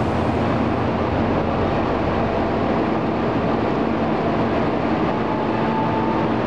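Steady rumbling hum of a KA Jayabaya passenger train beside the platform, with a faint higher whine near the end.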